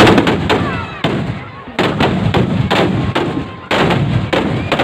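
A string of loud explosive booms, about six, coming at irregular intervals, each sudden and dying away with a ringing tail.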